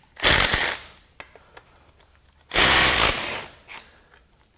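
Cordless 3/8-inch impact wrench with a hex bit hammering in two short bursts about two seconds apart, backing out the bolts that hold the bottle jack in a floor jack's frame.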